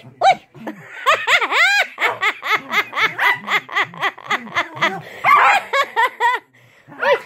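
Dogs barking and yapping in quick, repeated calls during rough play, with a person laughing hard along with them. The calls come about four or five a second and break off briefly near the end.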